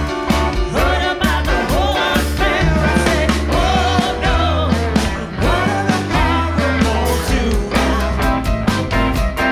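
Live rock band playing with a steady beat: a woman's lead vocal over electric guitar, electric bass and drums.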